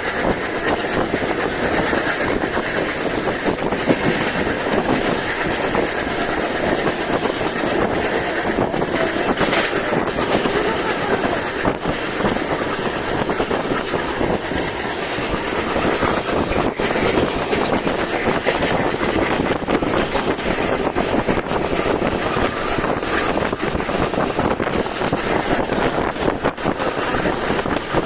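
Express passenger train running on the rails with a steady loud rumble, wheels clicking over rail joints and a high, steady wheel squeal.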